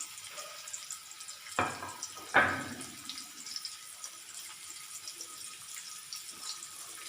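Garlic and onion sizzling and crackling steadily in hot coconut oil. Two knocks about one and a half and two and a half seconds in, the second louder and briefly ringing.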